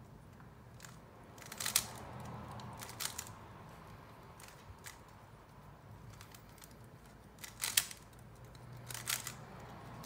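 Plastic Rubik's cube layers being turned by hand, making short clusters of clicks and clacks. The loudest turns come a little under two seconds in and just before eight seconds, with others near three and nine seconds and fainter ones between.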